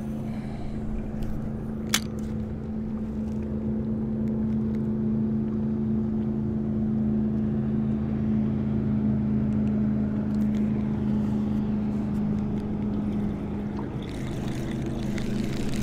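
Boat motor running with a steady hum, its tone changing slightly about fourteen seconds in; a single sharp click about two seconds in.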